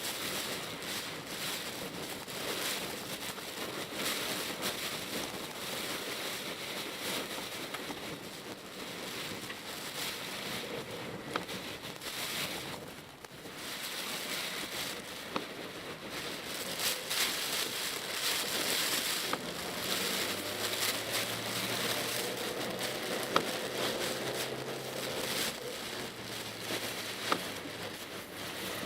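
Rain beating on a Mitsubishi Pajero Mini's roof and windscreen, heard from inside the cabin, over the hiss of tyres on a wet road, with now and then a sharp tick. A low steady hum joins for roughly the last third.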